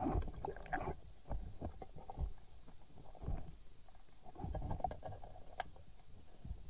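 Muffled underwater noise picked up by a camera mounted on a speargun: irregular low thumps and rustling of water and gear as the diver moves, with two sharp clicks about five seconds in.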